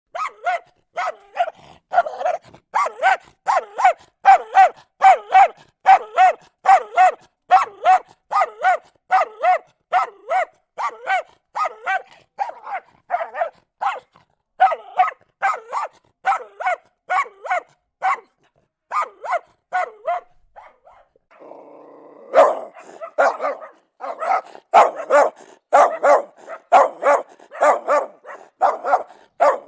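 Dog barking angrily, sharp barks repeated about two a second. About twenty seconds in the barks pause briefly for a rougher, steadier sound, then come back denser and louder.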